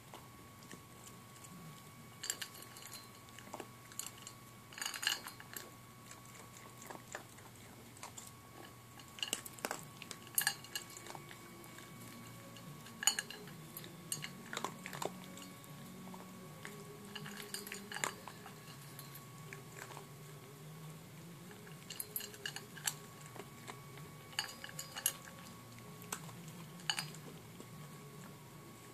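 Puppy eating dry kibble from a bowl: irregular crunches and clicks as the pieces are picked up and chewed.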